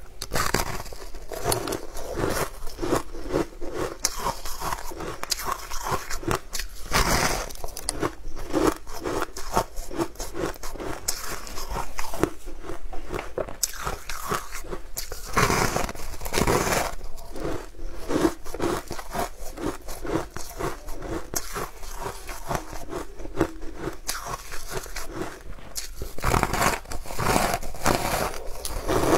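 Biting and chewing crunchy sugar-coated sweet pastry: a dense run of crisp crunches, with a few louder bites about seven seconds in, around the middle and near the end.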